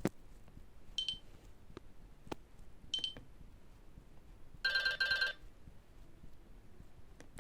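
Nokia E65 mobile phone's loudspeaker playing a sparse ringtone: two short high beeps about two seconds apart, then a half-second warbling trill near the middle. A sharp click at the start and faint clicks near the end.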